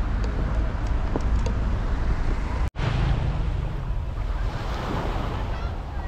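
Sea waves breaking and washing up the beach, with wind rumbling on the microphone. The sound drops out for an instant about halfway through.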